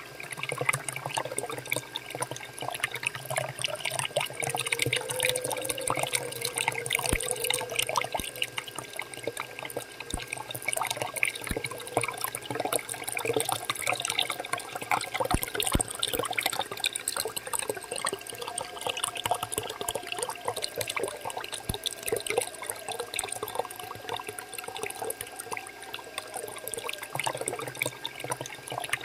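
A stream of water from a mini DIY water pump's outlet pipe splashes steadily into a shallow pool of muddy water.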